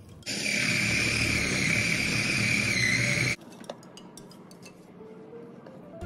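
Food processor motor running at full speed for about three seconds, blending ground peanuts into peanut butter. It starts and cuts off abruptly and is followed by a few faint clicks.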